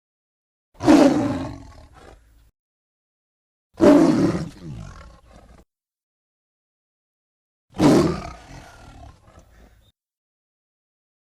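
Allosaurus roar sound effects: three separate deep roars about three to four seconds apart. Each starts suddenly at full strength and trails off over a couple of seconds, with dead silence between them.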